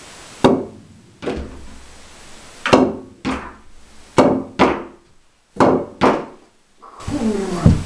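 Four pool shots in a row: each a sharp click of the cue tip striking a ball, followed about half a second later by a second knock as the ball reaches and drops into the pocket across the table.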